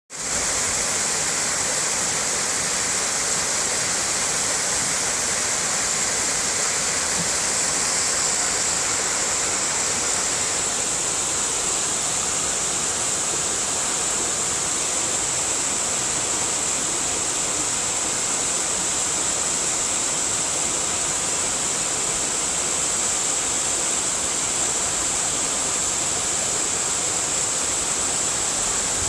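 Waterfall rushing: a steady, even roar of falling water that cuts in suddenly at the start and holds unchanged.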